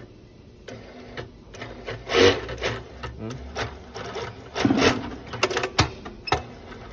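Siruba T828-45-064M double-needle lockstitch industrial sewing machine being test-run in several short bursts, with clicks and knocks, after its slipped drive belt was refitted to clear an error 7. The loudest bursts come about two seconds in and in a cluster near the end.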